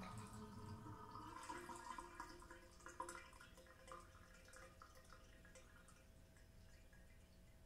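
Faint last gurgles of a bathtub draining, dying out within about a second, then scattered small drips as the sound fades away.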